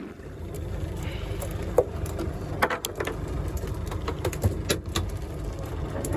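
Steady low rumble of a fishing boat under way, engine and wind on the microphone, with scattered sharp clicks and knocks from handling rod, reel and gear on deck.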